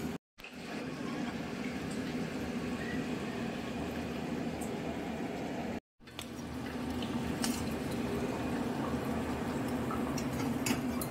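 Thick curry simmering in a pan, a steady bubbling with a few faint pops, broken twice by brief silent cuts.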